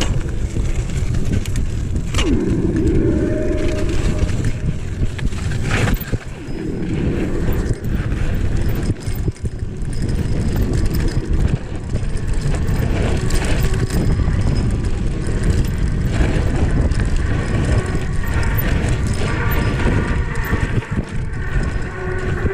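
Mountain bike descending a rough dirt race course at speed: a continuous rumble and rattle of tyres and frame, with a few sharp knocks from bumps.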